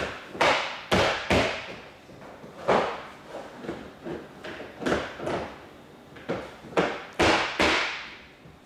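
Interlocking ABS plastic floor tiles being dropped and pressed down onto each other's clips: a dozen or so sharp plastic knocks and clacks at an uneven pace.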